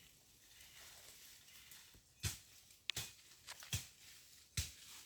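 Four sharp knocks or thumps, evenly spaced a little under a second apart, starting about two seconds in after a quiet stretch.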